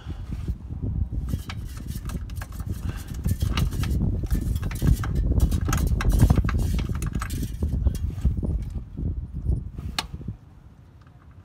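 Last bolt of a trailer hitch being fitted by hand under a car: close handling and rustling noise with many small metallic clicks and clinks of the hardware, and one sharper click near the end before it goes quieter.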